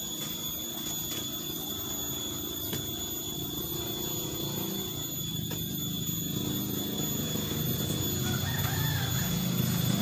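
Chickens clucking and a rooster crowing, getting louder toward the end, with a couple of faint knocks from a hoe working mortar in a wheelbarrow.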